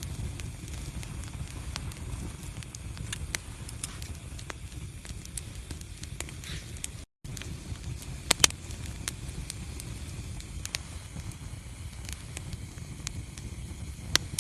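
Wood fire burning in a fireplace: a steady low rumble of flames with scattered crackles and pops. Two sharp pops come about eight seconds in and another near the end, and the sound cuts out for a split second about halfway through.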